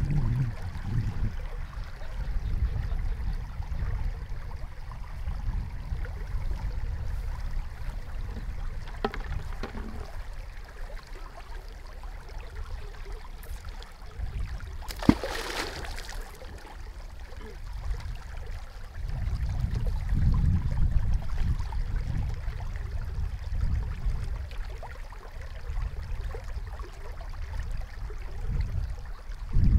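Muddy channel water flowing, under a low rumbling that comes and goes in gusts. About fifteen seconds in there is one sharp click followed by a brief rush of noise.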